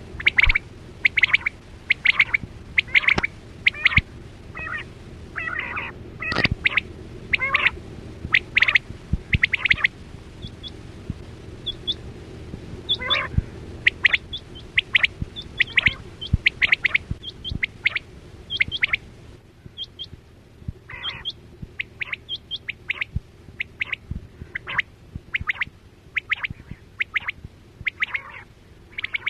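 Quail calling: runs of short, sharp, repeated chirping calls, many in quick succession, over a steady low hum.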